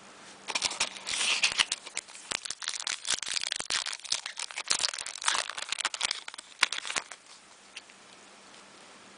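Crinkling and tearing of a trading card pack wrapper being torn open and handled, a dense run of crackles that stops about seven seconds in.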